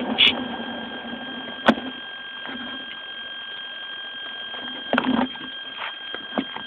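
Small RC plane on the ground: a low motor hum dies away in the first couple of seconds, leaving a steady high-pitched electronic whine. Several sharp clicks and knocks come through, a cluster about five seconds in, as the plane, with a phone taped under it, rests on the pavement and gets bumped.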